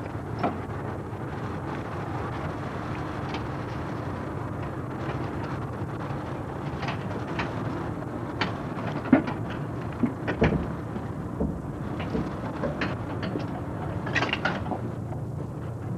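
Scattered metal knocks and clanks from work on the underside of a Fiat 127, the loudest about nine and ten seconds in, over a steady low hum.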